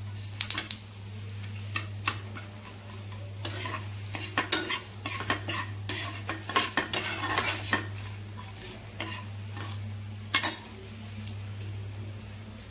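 Steel spatula scraping and clicking against a frying pan while stirring whole spices being tempered in hot mustard oil, with a light sizzle underneath. The scrapes come in irregular bursts, busiest in the middle, over a steady low hum.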